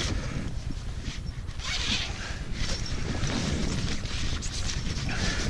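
Wind buffeting the microphone in a steady low rumble, with short bursts of rustling hiss about two seconds in and again a little later.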